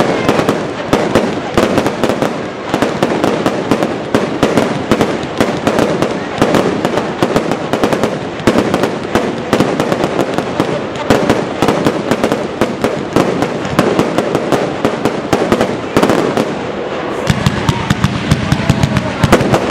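Fireworks display: a rapid, continuous string of loud bangs and crackles from bursting shells, several a second, with a brief thinning near the end before it picks up again.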